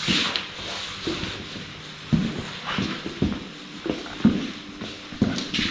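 Soft, irregular knocks starting about two seconds in, roughly two a second, with a brief hiss at the start and near the end.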